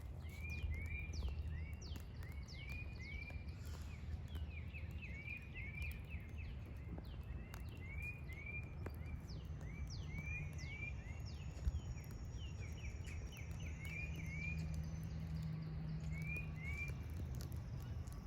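Birds calling outdoors, short chirps repeated in quick pairs with fast down-slurred notes, over a steady low rumble. One sharp click about two-thirds of the way through.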